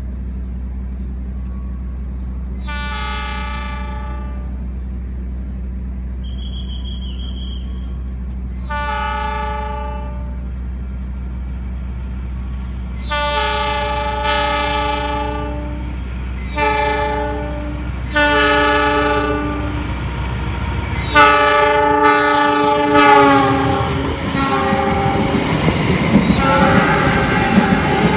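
Locomotive air horn of an oncoming Argo Parahyangan train sounding the Semboyan 35 signal again and again: about eight blasts of a multi-note chord, growing louder and coming closer together. Near the end the train runs past alongside with a loud rumble of wheels and running gear. A steady low engine drone sounds under the first two-thirds.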